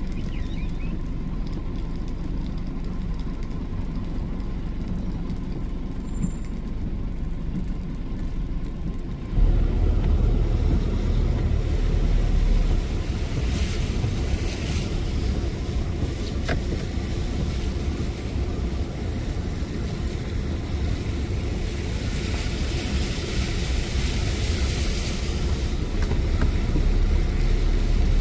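Car driving on a road: a steady low rumble of engine and tyres that gets suddenly louder about a third of the way in, with stretches of hiss later on.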